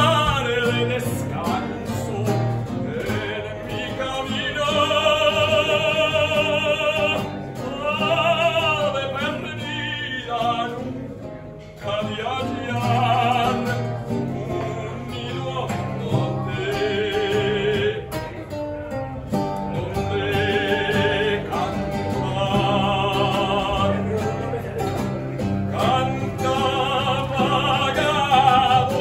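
A man singing a zarzuela romanza in an operatic style, long held notes with strong vibrato, accompanied by an acoustic guitar. The singing breaks briefly between phrases, with one short pause about eleven seconds in.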